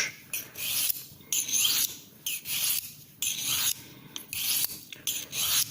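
Stainless steel paring knife edge drawn along the ceramic rod of a Victorinox Dual-Knife Sharpener, giving a dry, hissing scrape about once a second, some six strokes. Each stroke is the ceramic abrading steel from the edge as the apex is formed.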